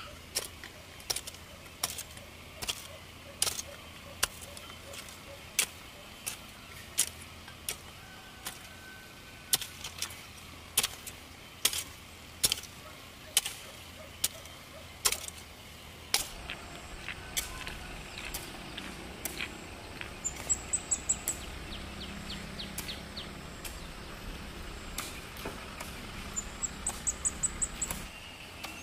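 Hoe blade chopping into dry, hard soil: a sharp strike about every half second to second, thinning out in the second half. Twice in the second half comes a quick run of high, sharp clicks, about eight a second.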